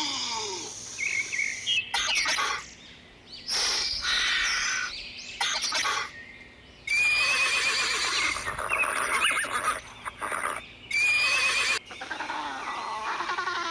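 A string of short bird-like animal calls and chirps, spliced together so that the sound starts and stops abruptly several times.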